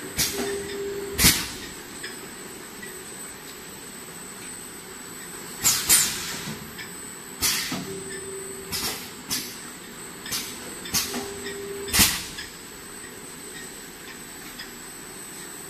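Four-nozzle automatic filling machine running over a steady hum and a constant high whine. Every few seconds its pneumatic cylinders fire with sharp clicks and short hisses of exhausting air as the nozzles dose and the containers are moved along. A brief low steady tone sounds three times.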